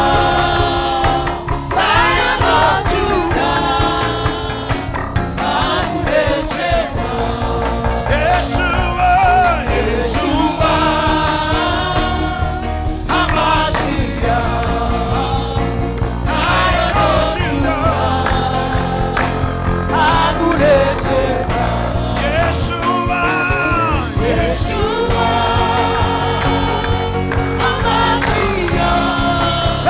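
Live gospel worship music: a band playing steadily while a voice sings a melody over it.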